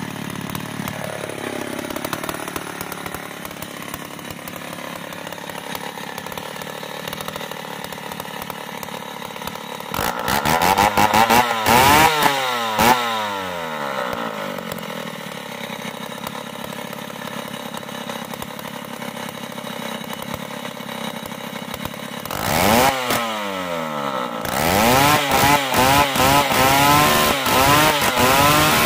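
Two-stroke chainsaw catching right at the start and idling steadily, blipped up and down in revs about ten to thirteen seconds in and again after twenty-two seconds. Near the end it is held at high revs, the pitch wavering under load as it rips lengthwise into a merbau hardwood plank.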